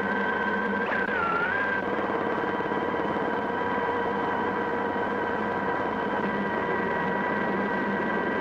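Helicopter running, a steady high turbine whine in several tones over a dense rushing engine noise; the whine dips briefly in pitch about a second in and then settles again.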